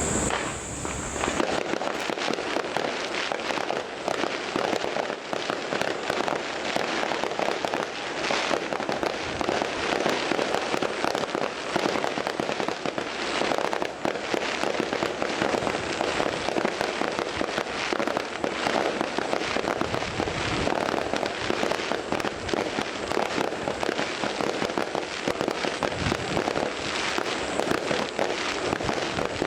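Fireworks going off in a dense, unbroken crackle of many small bursts. A thin, high steady whistle stops about a second and a half in.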